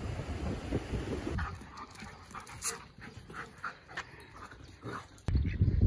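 Dogs playing chase on grass, with a dog's quick breathy puffs and a few small whimpers. Wind and surf noise fill the first second and a half, and a louder rush of wind on the microphone cuts in abruptly near the end.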